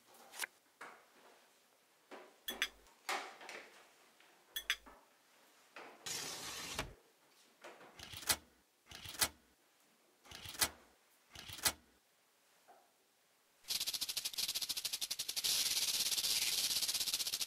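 Scattered light clicks and knocks from hands working a Mettler laboratory balance, with a short hiss about six seconds in. Near the end comes a few seconds of dense, rapid crackling.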